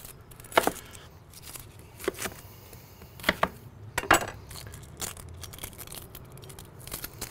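Chef's knife knocking sharply on a wooden cutting board a few times as a shallot is cut and skinned, then fainter rustling as the shallot's papery skin is pulled off by hand.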